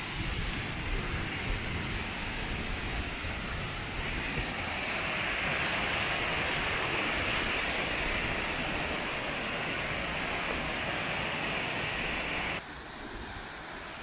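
Steady rush of a waterfall's falling water. About a second before the end it drops abruptly to a quieter rush.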